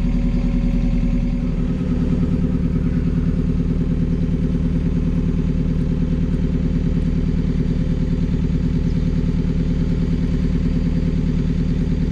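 A hire cruiser's inboard diesel engine runs steadily under way with a rapid, even throb. Its note changes slightly about a second and a half in.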